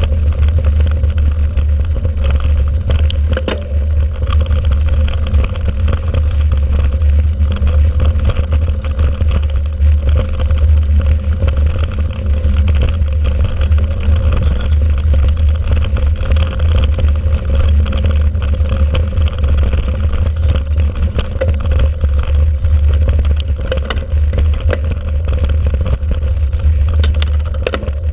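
Mountain bike riding fast over a rough dirt forest track, heard through a camera mounted on the bike: a loud, steady low rumble of wind and ground noise on the microphone, with scattered rattles and knocks from the bike jolting over the surface.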